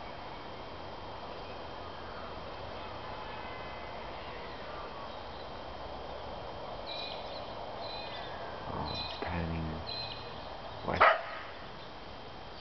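A dog barking: a lower bark or two about nine seconds in, then one sharp, loud bark about a second later. Under it runs a steady background hiss with a few short high chirps.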